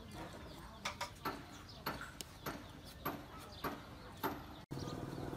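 Meat cleaver chopping small birds on a round wooden chopping block: about eight sharp, separate chops, roughly half a second to a second apart.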